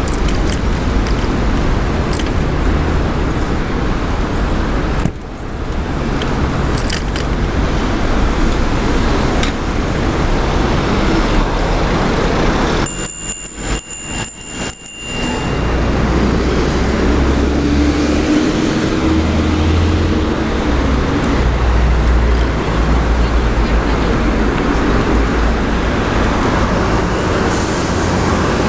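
Bicycle riding heard through wind on the microphone, with the rattle of the bike's chain lock and city car traffic going by. About halfway through the noise drops briefly and a thin high tone sounds for about two seconds.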